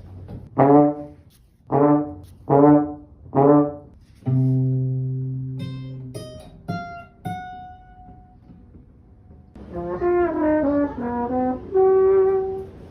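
Brass sound-effect stings. First come four short, loud blasts on the same pitch. Then a long low note fades out while a few sharply struck higher notes sound over it. About ten seconds in, a run of brass notes steps downward and ends on a held note.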